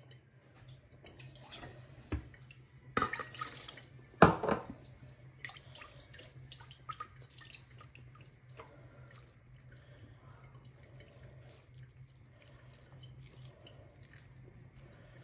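Water poured into a stainless steel bowl, with a couple of louder splashes or knocks about three and four seconds in, then the spiced liquid trickling and dripping from the bowl onto the lamb and onions in a clay tajine.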